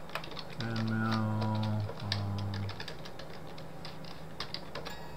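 Typing on a computer keyboard: a run of quick keystroke clicks. Twice in the first three seconds, a low, steady hum-like tone sounds over the typing.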